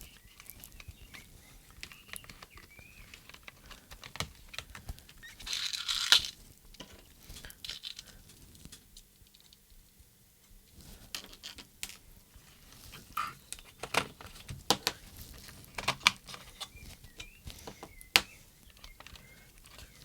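Small plastic radio-transmitter case and parts being handled and fitted back together: scattered clicks, taps and knocks, with a longer rustling scrape about six seconds in.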